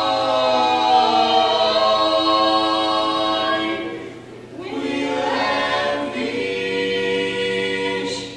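Barbershop quartet singing a cappella in four-part close harmony, a man's bass under boys' voices. The chords are held, dip into a short gap about four seconds in, and then a final long chord is held and cut off cleanly near the end.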